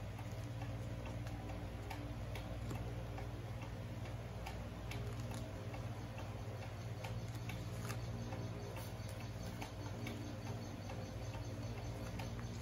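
Small irregular clicks and light rustling of a sheet of origami paper being folded and creased by hand, over a steady low hum.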